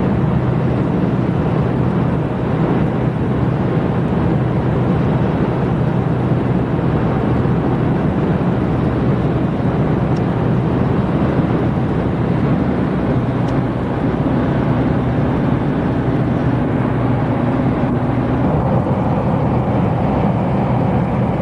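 Steady engine drone and road noise heard inside the cabin of a moving car, with a constant low hum.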